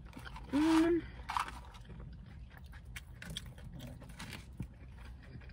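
Close-up chewing and crunching of a crispy fried chicken sandwich, with many small wet clicks. A short closed-mouth 'mm' hum comes about half a second in.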